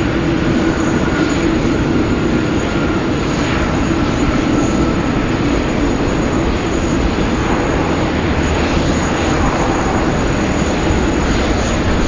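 Jet airliner engines running loud and steady, with a faint whine sliding slowly down in pitch during the first few seconds.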